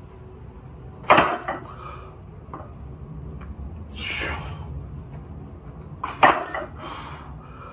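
A 400 lb axle (thick-bar) deadlift set down twice, the weight plates hitting the floor with a clank and brief rattle about a second in and again about six seconds in. Between the two, a sharp, forceful exhale as the lift is locked out.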